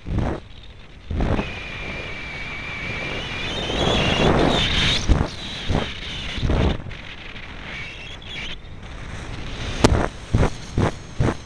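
Airflow buffeting the microphone of a camera mounted on an RC plane's wing, coming in gusts. For a few seconds about a second in, the whine of the plane's electric motor rises in pitch, and it returns briefly later. There is one sharp click near the end.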